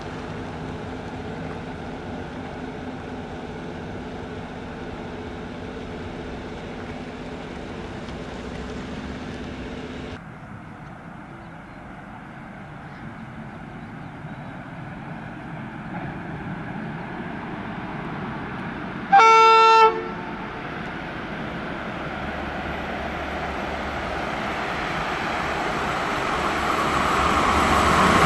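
Steady running noise and electric hum of a departing electric train, which cuts off about ten seconds in. A Romanian EA1-class electric locomotive hauling a passenger train then approaches and sounds its horn in one blast of about a second. Its rolling noise grows steadily louder as it nears.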